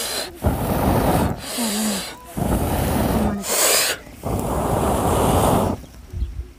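A man blowing hard on a wood fire under a cooking pot to fan the flames: several long, breathy blows in a row, each about a second, with short gasping in-breaths between them.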